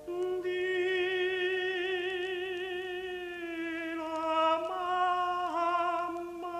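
Operatic tenor voice singing a lullaby, holding one long note with a wide vibrato for about three seconds, then moving through a few shorter notes.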